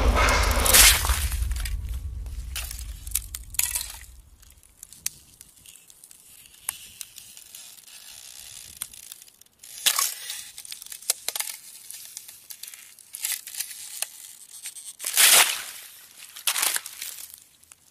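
A loud, deep, dense noise fades away over the first four seconds, followed by scattered sharp crackles and short crunching bursts, the loudest about fifteen seconds in.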